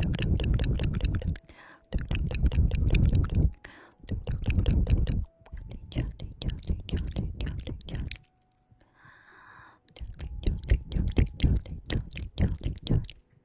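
Close-miked ASMR mouth sounds: wet clicking and smacking in dense bursts of a second or two, with short pauses between them.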